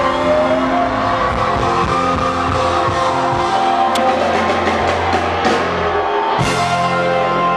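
Live band playing loud rock-style music with guitar and drum kit over a concert PA, with a sharp hit about four seconds in and cymbal crashes in the second half.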